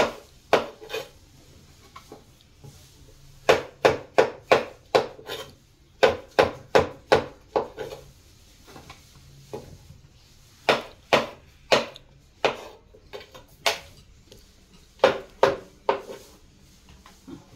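Kitchen knife slicing button mushrooms on a wooden cutting board: quick knocks of the blade on the board in runs of several strokes, with short pauses between the runs.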